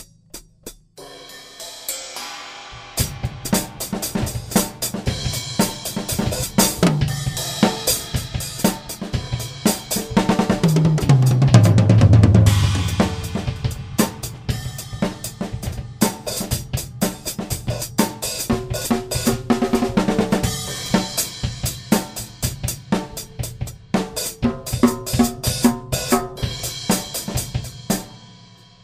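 Mapex Saturn walnut/birch drum kit played with Zildjian Z3 cymbals: grooves and fills on snare, bass drum and hi-hat with cymbal crashes. From about a quarter of the way in, a fill rolls down the toms, falling in pitch and building to the loudest part. The playing stops just before the end and the ring dies away.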